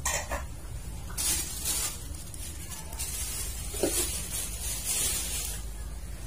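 Bitter-gourd sambal simmering in a frying pan on the stove, hissing and sizzling in uneven spells over a steady low hum.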